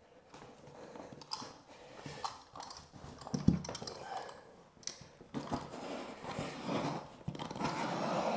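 Stanley utility knife cutting through vinyl lino flooring: irregular short scraping cuts and rustles of the sheet, with one sharp knock about three and a half seconds in.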